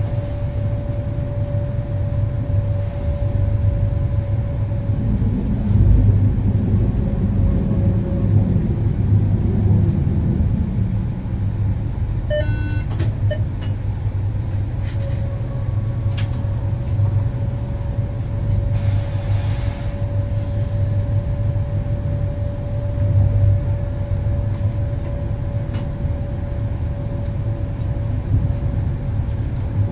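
Electric train running on the line, heard from the driver's cab: a steady low rumble of wheels on rail with a steady whine from the drive, which fades for a stretch and returns. A brief rattle of rapid clicks about halfway through.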